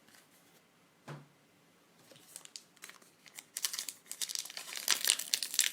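Trading-card pack wrapper being crinkled and torn open, starting about two seconds in and growing louder and busier in the second half.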